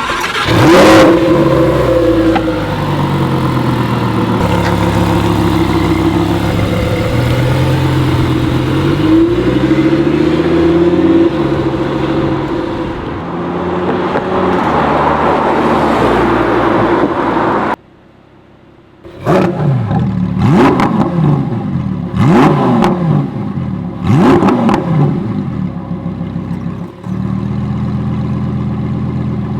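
Lamborghini Huracan EVO's 5.2-litre V10 starting with a loud flare, then idling high and gradually settling lower. After a brief break it is revved in about five quick blips and drops back to a steady idle. This is the stock exhaust, whose valves only open part way.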